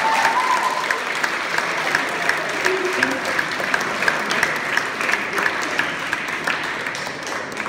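Large seated audience applauding: many hands clapping together, thinning out near the end.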